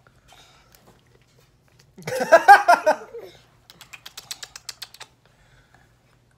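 About two seconds in, a short, loud, pulsing vocal burst lasts about a second. Before and after it come stretches of rapid soft clicking.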